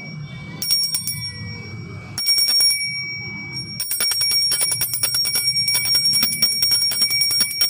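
Solid brass door or gate bell shaken by its chain. A couple of single clapper strikes come first, then rapid continuous ringing from about halfway in, with a clear high ring sustaining between strikes.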